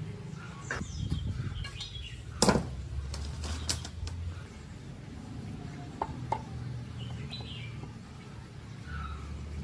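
Hand-tool work on an old air compressor's pressure switch: scattered clicks and knocks of a screwdriver and small parts, with one louder knock about two and a half seconds in and a few more knocks around the middle.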